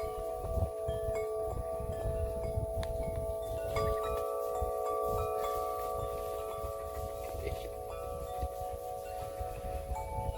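Wind chimes ringing, several long tones overlapping as new strikes come in every second or two, over a low uneven rumble.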